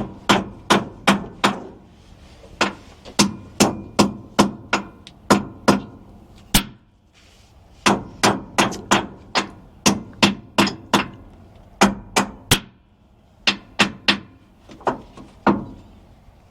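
Hammer blows, struck repeatedly at about two to three a second in runs with two short pauses between them, during repair work on a sweet corn picker.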